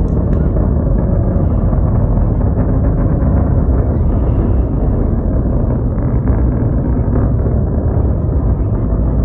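Rocket launch rumble: the engines' steady, deep roar carrying from the distant ascending rocket.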